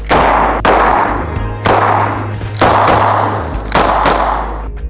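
Colt Cobra .38 Special revolver firing five shots, about one a second, each a sharp crack that dies away quickly, over a low steady musical bass.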